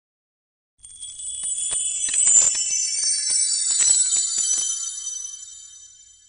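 Tinkling bell chimes come in about a second in, swell to a shimmer full of little jingling strikes, then slowly die away near the end: a chime sting under a title card.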